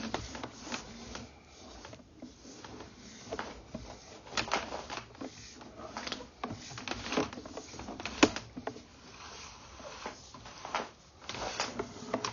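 Irregular clicks, knocks and rattles: a sewer inspection camera's push cable and reel being fed into a drain line.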